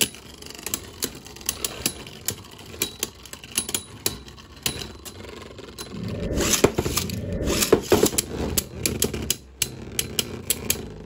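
Two Fafnir Beyblade Burst tops, one Hasbro and one Takara Tomy, spinning on a clear plastic stadium floor, their tips scraping with sharp clicks each time they knock together. About six seconds in the scraping grows louder for a couple of seconds as they grind against each other.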